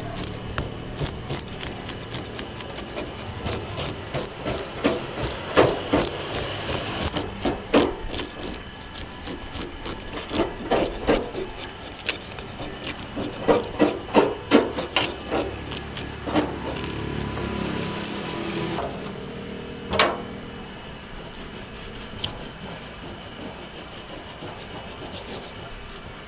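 Serrated metal fish scaler scraping the scales off a whole fish on a stainless steel tray: quick rasping strokes in rapid runs that stop about two-thirds of the way through, followed by one sharp tap and quieter handling.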